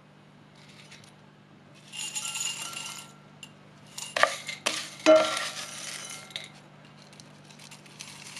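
Crispy fried shallots rustling and rattling as they are handled and tipped from a small glass jar into a bowl, with a few sharp clinks of glass against the bowl about four to five seconds in.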